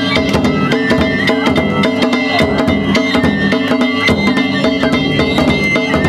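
Danjiri festival music played on the cart: a taiko drum beaten in a fast, continuous pattern, with ringing hand gongs and a high held flute melody.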